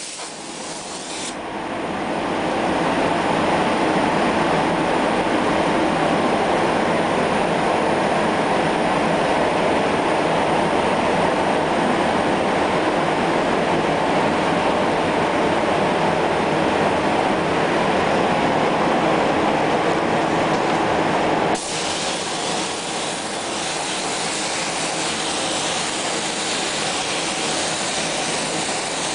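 Compressed-air spray gun hissing steadily as it mists spray-chrome chemicals onto a panel. The steady rushing changes abruptly about two-thirds of the way through to a thinner, hissier spray.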